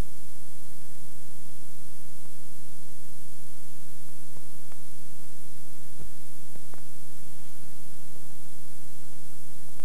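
Steady hiss and hum of a worn VHS soundtrack, with a few faint clicks or knocks about halfway through.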